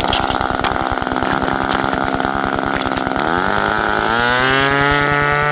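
Ultimate 40 RC biplane's model glow engine running at a steady pitch, then throttled up about three seconds in, its pitch rising to a higher steady note.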